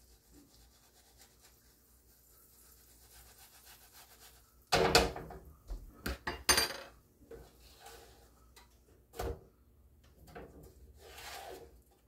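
Kitchen handling noises: a sudden clatter about five seconds in, followed by a few sharp knocks over the next two seconds, then a single thump a little after nine seconds and a softer rubbing sound near the end.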